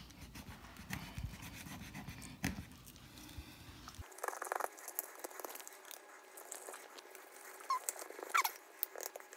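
Faint scraping and clicking of a fillet knife cutting through a flounder's flesh and along its bones on a wooden cutting board, with a couple of short squeaks near the end.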